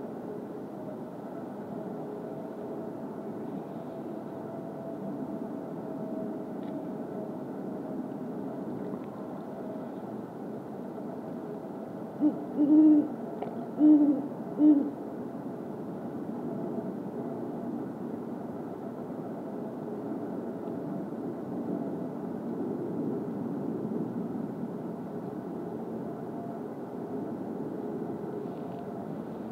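Male great horned owl giving a territorial hoot series midway through: about four deep hoots in some three seconds, the second one the longest.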